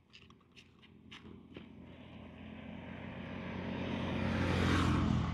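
A motor vehicle passing close by on the road, its engine and tyres growing steadily louder to a peak near the end and then starting to fade. A few light clicks come in the first second or so.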